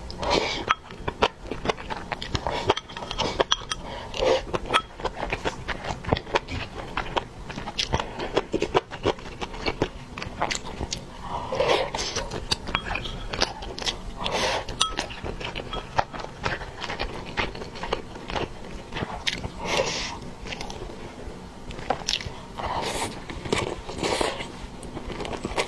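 Close-miked eating: wet chewing and biting with many small mouth clicks, and a few short slurps of broth and noodles from a bowl.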